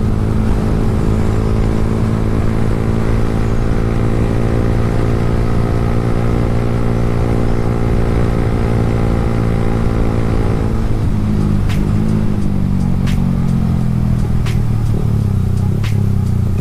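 Yamaha R15 V3's 155 cc single-cylinder engine running steadily at high revs under full throttle while riding. About eleven seconds in its note drops and wavers, and a few sharp clicks follow near the end.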